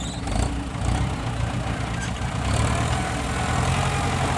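Dump truck diesel engine running at idle, slightly louder about halfway through.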